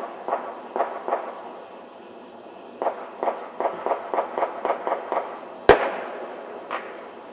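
Distant fireworks and firecrackers popping: a few scattered pops, then a rapid run of about four pops a second, then one sharp, much louder bang near the end.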